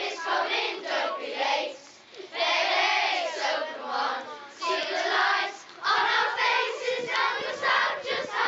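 A large group of children singing together in phrases, with short breaks about two seconds in and again near six seconds.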